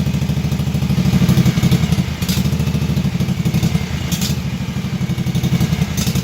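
Kawasaki FH series V-twin mower engine idling unevenly, with a sharp crackle about every two seconds. The engine is running rough at idle, a fault traced to the single-barrel carburettor's idle jet adjustment.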